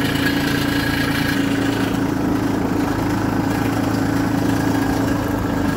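Compact tractor engine running steadily with an even hum as the tractor moves slowly over packed snow.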